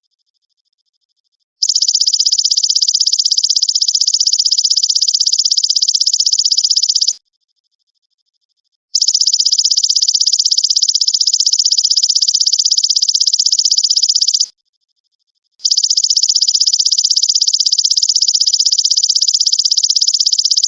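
Belalang emas insect song: a loud, rapid, high buzzing trill in three long bursts of about five and a half seconds each, with short pauses between.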